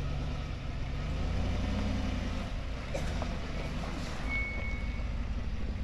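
A vehicle engine runs with a low rumble, its revs rising during the first couple of seconds. A few light clicks come about three seconds in, and a short high-pitched squeak or whistle follows about a second later.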